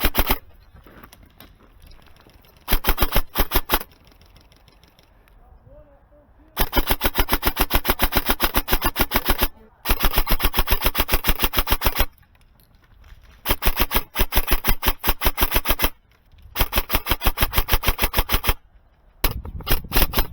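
Airsoft gun firing in semi-auto in fast strings of sharp, evenly spaced shots. Each string lasts one to three seconds, with short pauses between strings.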